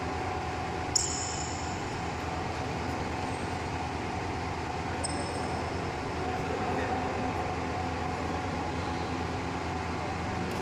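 Steady hum of an indoor sports hall, with one sharp crack of a badminton racket striking a shuttlecock about a second in, its strings ringing briefly after.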